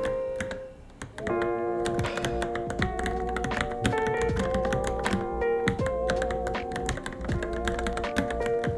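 Typing on a Varmilo Minilo mechanical keyboard: a steady stream of irregular key clicks over background music with a sustained melody. The music drops away briefly soon after the start and returns about a second in.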